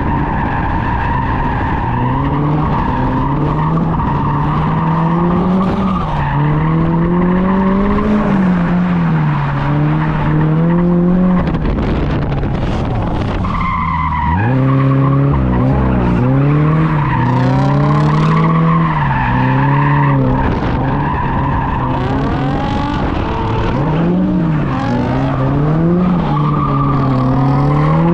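Toyota GR86's flat-four engine revving up and down again and again, with steady tyre squeal as the car slides through a drift. About halfway through the engine note drops briefly, then climbs again.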